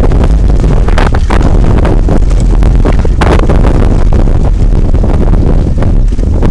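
Heavy wind buffeting on the microphone of a mountain bike riding fast down a dirt trail. Constant rattling and knocks come from the bike jolting over bumps.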